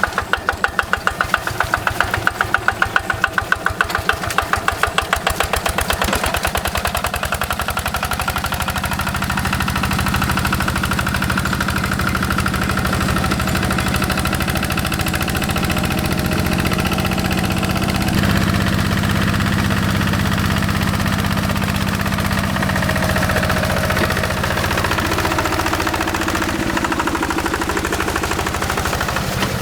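Single-cylinder Yanmar diesel of a Quick G1000 hand tractor running in the field, at first with a sharp rhythmic knocking beat. From about a quarter of the way in it settles into a smoother, steady running sound.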